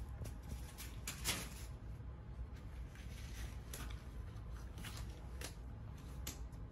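A few short, scratchy rustles, the loudest a brief scrape about a second in, over a steady low hum: an adhesive covering being peeled from a healing knee wound.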